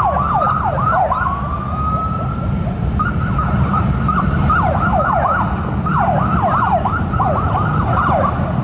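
Several sirens sounding at once in a fast, overlapping yelp, with one long rising wail about a second in, over a steady low rumble of traffic.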